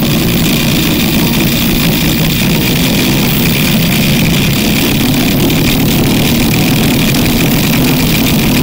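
Small opened 12-volt DC motor armature spinning on its shaft between hand-held ferrite magnets, its brushes sparking at the commutator. It makes a loud, steady whirring buzz.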